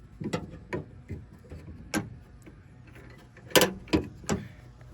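Tailgate latch rods and their clips clicking and knocking against the new tailgate handle assembly as they are handled and reconnected: about seven sharp clicks, the loudest pair a little past halfway.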